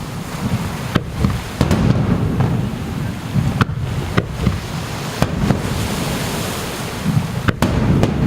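Fireworks shells bursting over the sea: several sharp bangs at irregular intervals, two close together near the end, over a steady low rumble.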